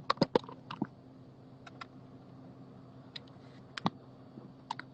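Scattered light clicks and taps, several close together in the first second and a few more later, over a low steady hum.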